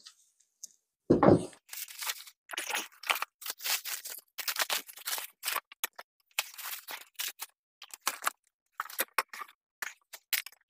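Layers of plastic wrap crinkling and tearing in irregular bursts as they are pulled off a piece of steel armour, after a single heavy thump about a second in.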